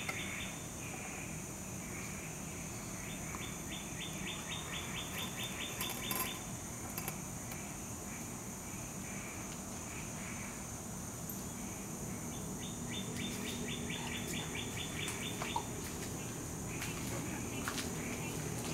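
Backyard outdoor ambience: a steady high-pitched insect hum with birds chirping. A rapid ticking trill of about five or six notes a second comes twice, each lasting two to three seconds.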